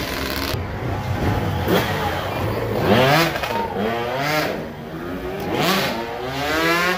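Dirt bike engine revving up and down in repeated short blips, its pitch rising and falling several times as the rider works through a tight obstacle section.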